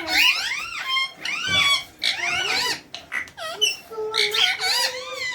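Pet parrot calling and chattering: a quick string of loud rising-and-falling squawks and whistles, nearly without a break.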